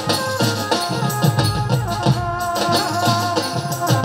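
Live band playing a Gujarati folk song through a sound system: a steady drum beat with rattling, shaker-like percussion under a held melody.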